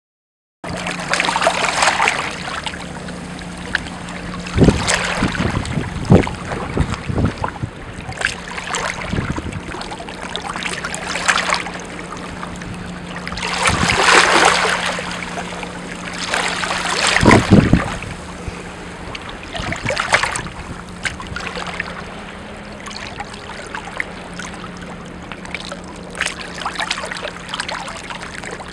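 Wind and choppy sea water, with gusts buffeting the microphone, a few dull thumps and a steady low hum underneath.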